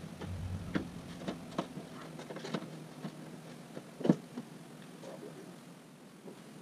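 Scattered light clicks and knocks of hand work on a dirt kart, parts and tools handled on its chassis and plastic body, the loudest a single knock about four seconds in.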